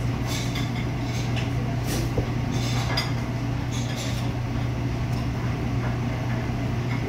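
A chef's knife slicing through a roasted pork loin on a cutting board, heard as a few short scraping strokes over a steady low background hum.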